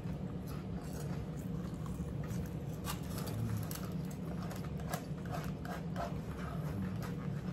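Two people eating crunchy food: crisp crackly chewing of cucumber salad and chips, with forks tapping and scraping on paper plates. A steady low hum runs underneath.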